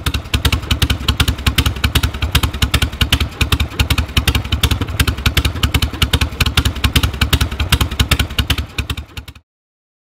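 Harley-Davidson V-twin motorcycle engine running at idle, an even beat of exhaust pulses; it cuts off abruptly near the end.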